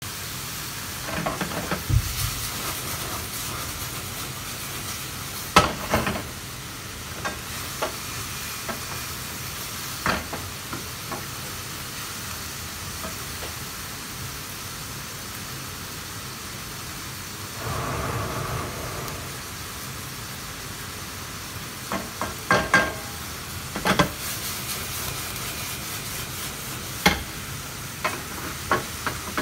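A frying pan sizzling on a gas burner under a steady hiss, with scattered knocks and clatters from a spatula and utensils against the pan.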